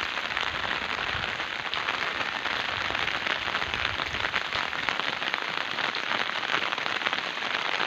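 Steady rain falling: an even patter made of many small drop ticks.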